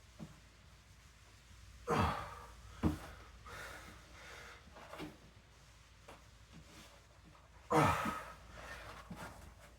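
A person breathing hard through an exercise set, with forceful exhales about two seconds in, near three seconds and near eight seconds, and quieter breaths between.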